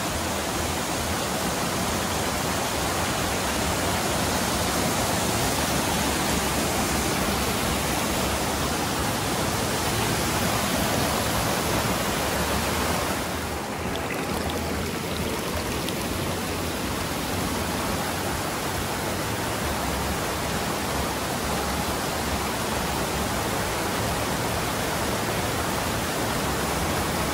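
Water pouring down a waterfall: a steady rushing noise that dips briefly about halfway through.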